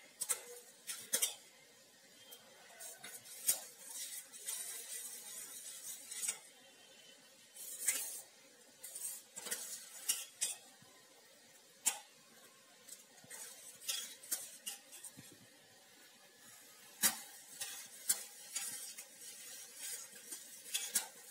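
Steel ladle stirring a stainless steel pot of thick, nearly cooked thandai sugar syrup, clinking and scraping irregularly against the pot's sides and bottom. At times a soft hiss comes from the thick syrup bubbling and spattering.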